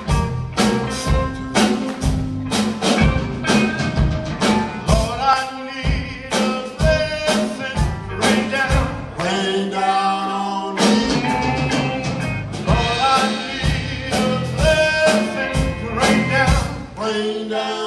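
A live gospel band playing: a drum kit keeps a steady beat under electric guitars, with a man singing lead into a microphone.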